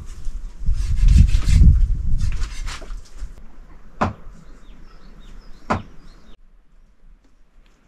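Rustling, scraping handling noise, then two sharp knocks about a second and a half apart, with small birds chirping between them. The sound drops away about two-thirds of the way through.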